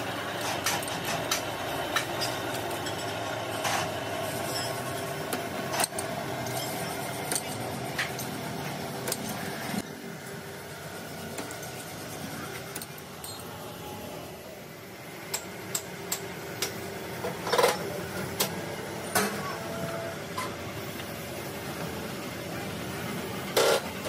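Metal-working machinery running with a steady hum, broken by scattered sharp metallic clanks and knocks, the loudest a little past halfway and again near the end.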